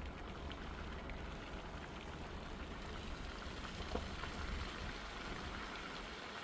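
Light rain falling with scattered drops ticking, over a steady low vehicle rumble, with one sharper knock about four seconds in.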